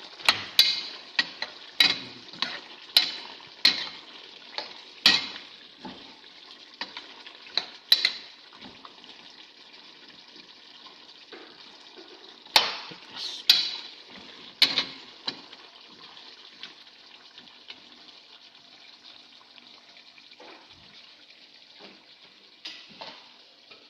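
Spoon clinking against the pot while a simmering curry is stirred to check whether the meat is tender: a quick run of sharp metallic clinks in the first eight seconds and another burst around twelve to fifteen seconds, over a steady low bubbling hiss.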